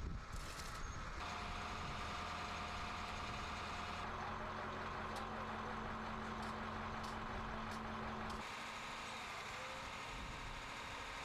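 A vehicle engine running with a steady hum, which drops away about eight seconds in, leaving a steady background rumble.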